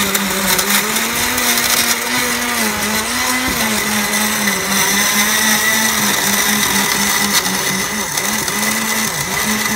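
Black & Decker countertop blender with a glass jar running, churning frozen yogurt and rum into a drink. Its steady motor hum sags briefly in pitch now and then, more often in the second half, as the thick mix loads the blades.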